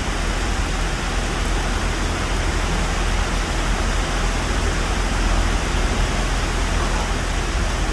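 Heavy rain pouring steadily, a dense, even hiss with a low rumble underneath.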